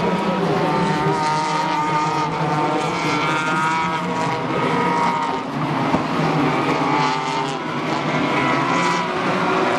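Several Renault Mégane Trophy V6 race cars running hard on the circuit, their V6 engines overlapping at high revs as the pack goes by.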